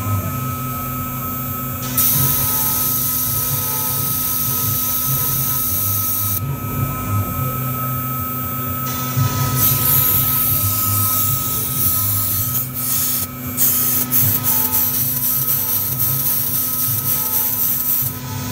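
1325 CNC router's spindle whining steadily while its engraving bit carves letters into a board. The hissy cutting noise grows and fades in stretches as the bit moves from stroke to stroke, with a few sharp ticks in the second half.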